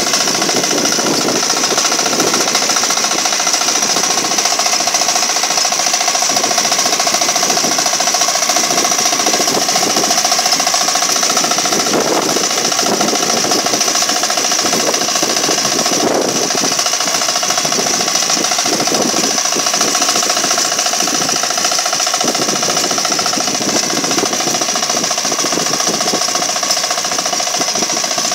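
Walk-behind hand tractor (kuliglig) with a small engine, running loud and steady under load as its tiller plows through grassy soil, with a rapid, even engine beat throughout.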